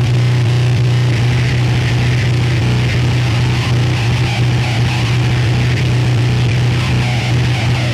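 Noise music: a loud, steady low hum under a dense haze of static, with no beat and no change.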